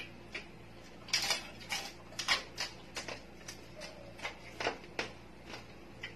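Close-mic eating sounds: crunching and chewing of crispy roast pig's head (lechon ulo) skin and meat. A quick run of sharp crunches and smacks, thickest between about one and three seconds in, then sparser.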